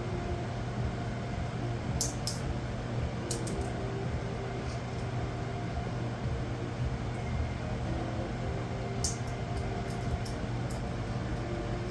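Senegal parrot crunching and nibbling an almond with its beak: a few sharp cracks about two and three seconds in and a quicker run of them near the end, over a steady low room hum.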